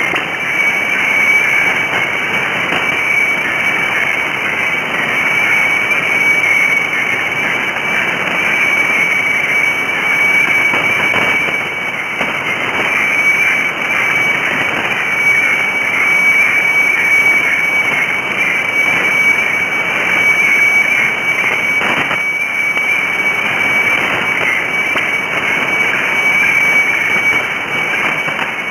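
HF radiofax (weather fax) signal from Bangkok station HSW64 on 7395 kHz, heard through a shortwave receiver in sideband mode: a steady high whistle that flickers slightly as the picture is sent, mostly the white-level tone, over band hiss and static.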